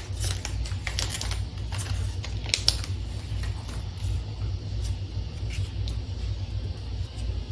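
Pokémon trading cards being handled and flipped through, with scattered light ticks and slides of card on card, one sharper tick about two and a half seconds in, over a steady low hum.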